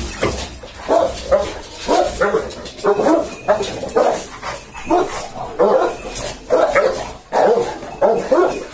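Dogs barking repeatedly, a bark or two about every second without a break.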